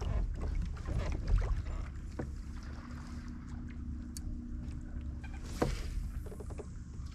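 Low rumble of wind and water against a plastic fishing kayak's hull, with scattered knocks and clicks of gear on the hull, the sharpest about one and a half seconds in and near the end. A faint steady hum runs for about three seconds in the middle.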